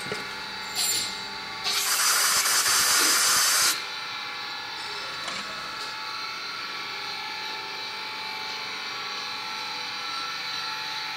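Compressed-air blow gun cleaning out the freshly tapped spark-plug hole in the cylinder head: a short puff about a second in, then a loud blast of air for about two seconds. A steady hum runs underneath throughout.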